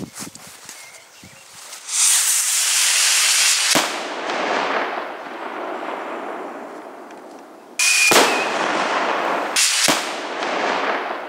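Whistle-salute firework rocket: a loud rushing hiss about two seconds in, cut off by a sharp bang that rolls away in a long echoing rumble. Two more sharp bangs with echoing tails come near the end.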